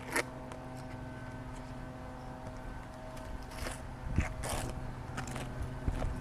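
A steady machine hum with a few irregular scrapes and knocks over it, the loudest about four seconds in.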